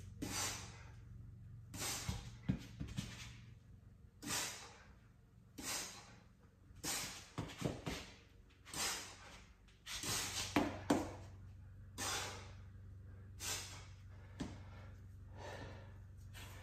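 Heavy breathing of a man exercising, a short puff about every second or so, with a few knocks and scuffs of shoes against the wall and floor as he works his feet down. A steady low hum runs underneath.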